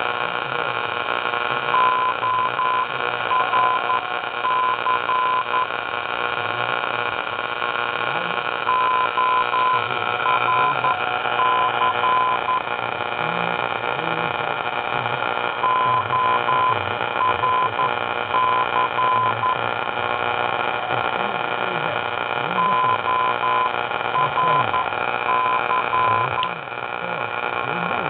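Morse code (CW) tone near 1 kHz keyed on and off in the same short group of dots and dashes, repeating about every seven seconds, heard through an AM radio's speaker over steady static. It is a repeating identifier that the listener takes for a beacon, perhaps for an airport, at the very bottom of the AM band.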